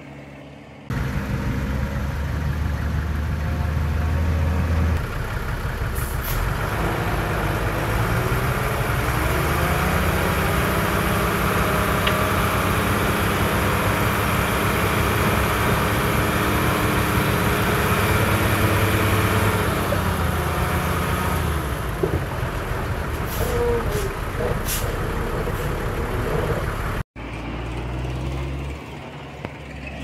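Heavy diesel engine of earth-moving machinery working: the revs climb a few seconds in, hold, then drop back. The sound cuts off abruptly near the end and a quieter engine follows.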